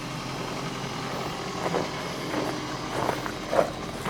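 Second-generation Toyota Prius's 1.5-litre four-cylinder petrol engine running with a steady hum and a few brief louder blips, misfiring.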